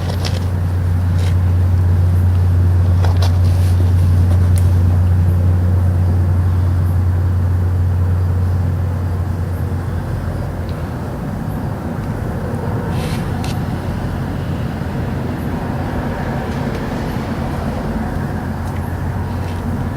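A steady deep hum that swells over the first couple of seconds, holds, and fades about nine seconds in, leaving a fainter rumble.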